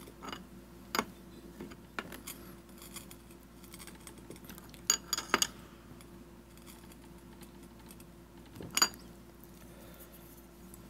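A few separate metallic clinks and taps of a wrench on a straight grinder's spindle nut as it is tightened down onto the grinding wheel, crushing the rubber washers; three clinks come close together about five seconds in.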